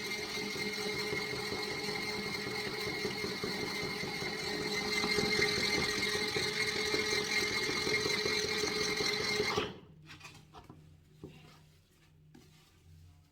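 Small electric motor of a mini portable washing machine running with a steady whine, then cutting off suddenly about ten seconds in, leaving only a few faint knocks.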